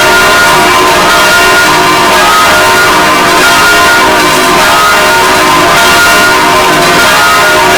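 Six church bells ringing together, their strokes overlapping without pause into a loud, steady wash of many tones.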